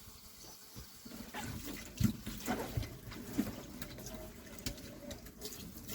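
Tap water running into a kitchen sink as raw beef tripe is washed under it, with splashing and a few sharp knocks of handling, the loudest about two seconds in.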